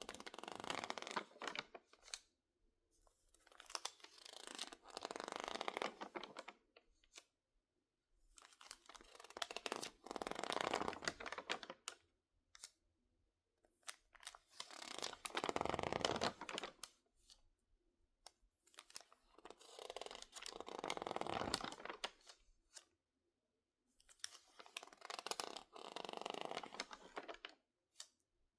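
Crinkled, water-stiffened magazine pages being squeezed and handled by hand. The dry, crackling rustle comes in slow swells of a couple of seconds each, about six of them, with short quiet gaps between.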